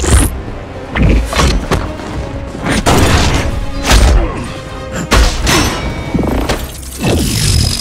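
Fight sound effects: a series of heavy punch and body-slam impacts, about ten hits at irregular intervals, over film score music.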